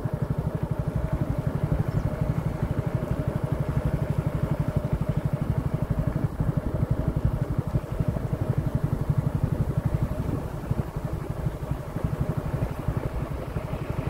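An engine running steadily, with a fast, even pulsing that eases a little near the end.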